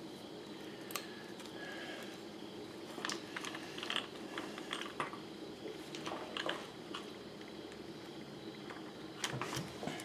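Scattered small clicks and rattles of hard plastic and metal RC truck parts being handled as the drive shaft is fitted back into its cup, busiest in the middle and again near the end, over a steady low hum.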